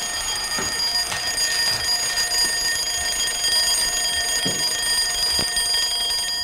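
Alarm clock bell ringing steadily and shrilly, left ringing despite the call to turn it off; it stops near the end. A few soft knocks sound beneath it.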